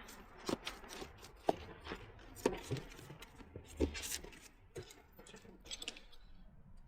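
Bicycle tire being worked around the rim by hand to break the tubeless bead seal: irregular sharp clicks and knocks, about one a second, over faint rubbing of rubber against the rim.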